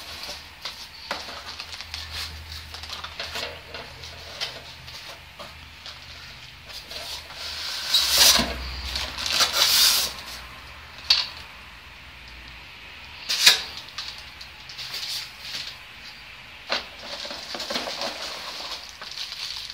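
Monitor packaging being handled: plastic bags rustling and styrofoam and cardboard scraping as parts are taken out of the box, in irregular bursts, loudest about eight to ten seconds in, with a sharp knock or scrape about thirteen seconds in.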